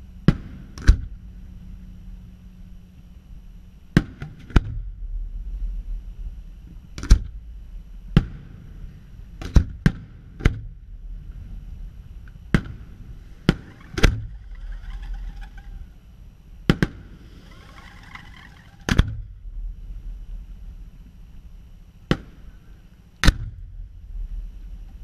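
Aerial firework shells bursting: about fifteen sharp bangs at irregular intervals, a second or two apart, with a busier stretch of smaller sounds near the middle.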